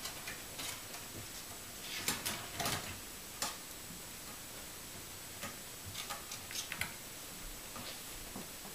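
A cat pawing and clawing at a wooden kitchen cabinet door, working it open: scattered light clicks and knocks of claws and the door against its frame, in two busy spells.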